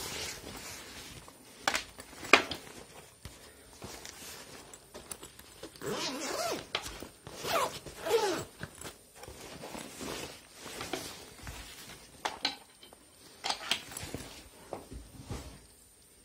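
A nylon laptop backpack being handled: fabric rustling and scraping in irregular bursts, with its zip being pulled.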